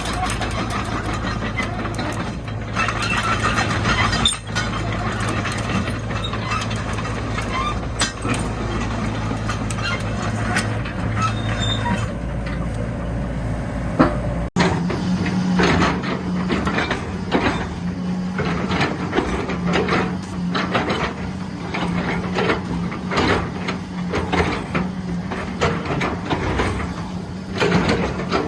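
Excavator engine running steadily under many sharp knocks and clanks. About halfway it cuts abruptly to a higher, steady engine note with more frequent knocks.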